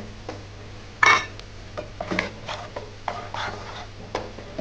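Wooden spatula scraping and tapping against a nonstick wok while chopped garlic is stirred in melted butter, with one louder knock about a second in.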